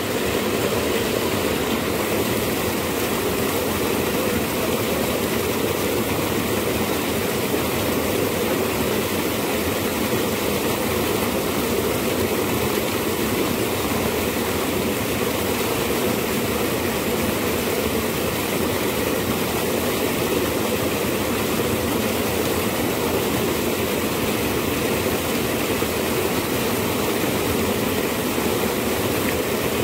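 Fast-flowing irrigation channel water rushing over small rapids, a steady, unbroken rush.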